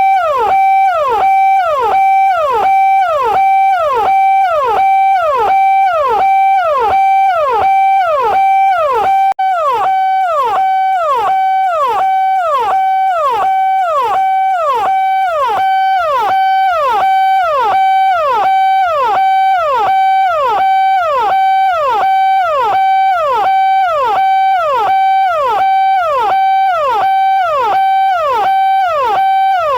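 Indian police siren (hooter) sounding continuously in a fast repeating cycle. Each cycle is a quick falling sweep that settles onto a steady high tone, a few times a second, with a momentary break about nine seconds in.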